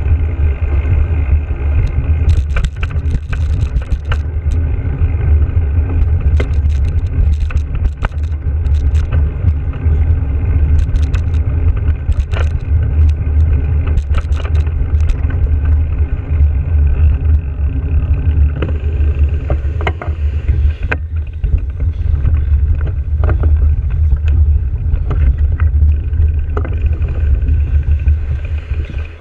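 Bicycle-mounted action camera picking up a steady, loud low rumble of wind and road vibration while riding. Frequent short clicks and rattles come through as the bike runs over bumps in the path.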